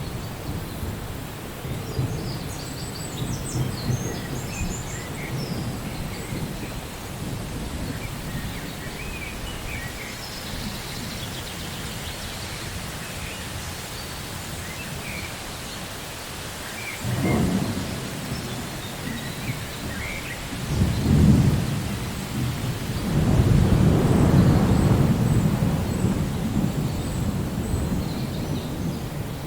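Steady rain with thunder rumbling three times in the second half: a short rumble, a stronger one, then a longer rolling one.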